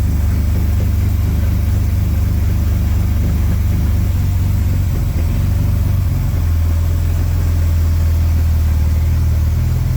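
1938 SS Jaguar 3½ Litre's straight-six engine running at low revs as the car is moved off slowly; its note settles into a steadier, deeper hum about six seconds in.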